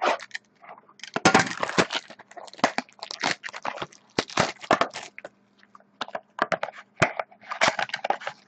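Sealed trading-card box packaging being cut, torn and crinkled open by hand: a run of irregular crackling and rustling.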